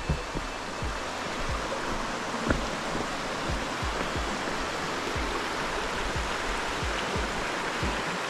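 A rocky mountain brook rushing steadily over stones, growing louder a few seconds in, with a hiker's footsteps thudding about twice a second.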